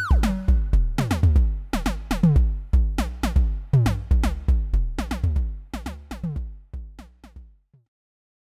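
Slim MPS eurorack analogue percussion synthesizer (a version of Thomas Henry's Mega Percussive Synth) playing a rhythmic pattern of drum hits, each with a sharp attack and a quickly falling pitch over a deep low thud. The pattern grows quieter and stops about three-quarters of the way through, then there is silence.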